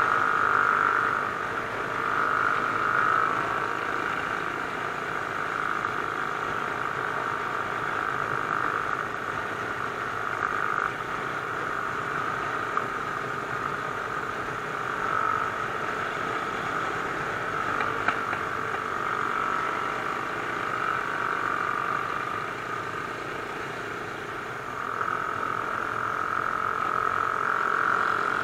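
Mash Cafe Racer 250cc motorcycle engine and exhaust running at road speed, heard from the bike's own onboard camera. A steady note that swells and fades several times.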